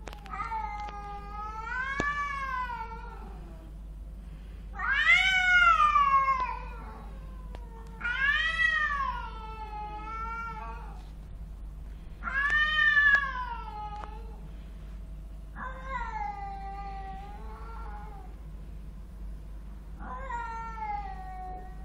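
Two street cats yowling at each other in a face-off: the threat caterwauling of a cat fight. About six long, drawn-out wails rise and fall in pitch, the loudest about a quarter of the way in and again just past halfway.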